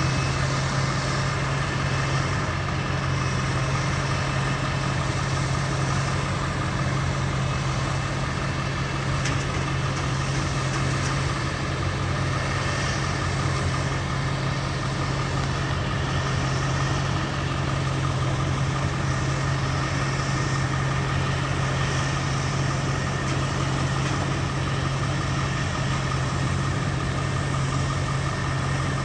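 Engine of farm harvest machinery running at a steady speed, a constant low hum over a noisy mechanical din with no changes in pace.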